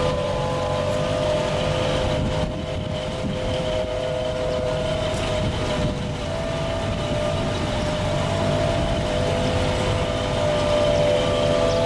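Heavy haulage truck's diesel engine running at low speed while pulling an oversize load on multi-axle trailers, a steady rumble with a steady high whine over it.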